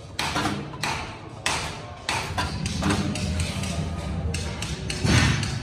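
Stainless steel strips and the basket's metal frame clinking and knocking as they are handled and fitted together by hand, a few sharp knocks at irregular intervals with the loudest near the end, over a low steady hum.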